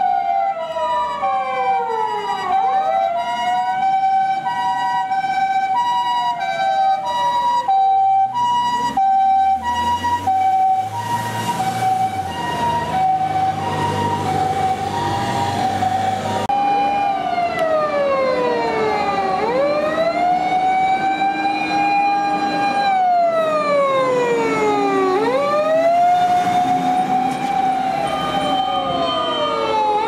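Japanese emergency-vehicle sirens on a response run. An ambulance's two-tone hi-lo siren alternates steadily for about the first half, while an electronic wail siren repeatedly sweeps down and back up. A vehicle's engine and tyres pass close by around the middle. The hi-lo tone then stops, and the fire engine's wail keeps sweeping down and up as it approaches.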